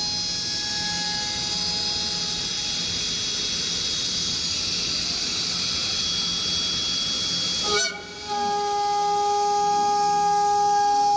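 High-speed router spindle of an overhead robotic trimming machine whining steadily while trimming a hot tub spa shell, with a high hiss of cutting. About eight seconds in the sound breaks off abruptly and comes back as a louder, steadier, lower whine.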